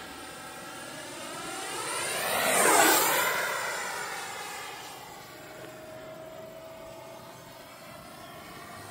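80mm electric ducted fan F-86 Sabre RC jet on a 6S battery making a high-speed low pass: a whooshing fan whine that swells to its loudest about three seconds in, drops in pitch as the jet goes by, then fades as it flies off.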